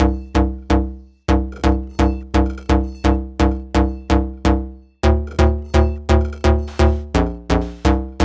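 Electronic music: a deep, pitched electronic note repeating about three times a second. The pattern breaks off briefly about a second in and again about five seconds in.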